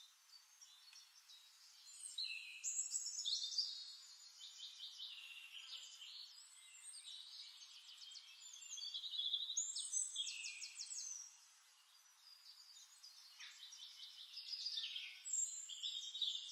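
Faint songbird chorus: many rapid high chirps, trills and short falling notes from several birds, with a brief lull about two-thirds of the way through.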